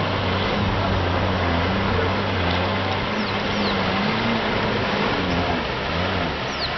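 Vehicle engine running steadily as a pickup drives through a shallow river: a low hum that wavers slightly in pitch, under a steady rushing noise.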